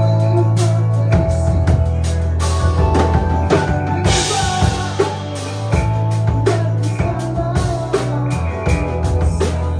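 Live rock band playing: drum kit beating steadily under heavy low bass notes and electric guitar. A cymbal crash rings out about four seconds in.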